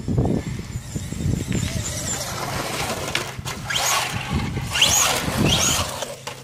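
Traxxas Slash 4x4 Platinum RC truck's brushless electric drive whining up in pitch in about three short bursts of throttle in the second half. A low wind rumble on the microphone runs underneath.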